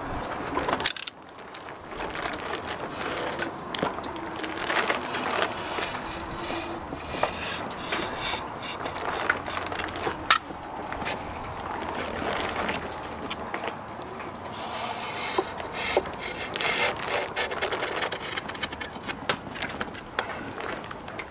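Stanley knife blade scraping and scoring across vinyl decal lettering on a fibreglass hull, in irregular strokes with small clicks and ticks of the blade.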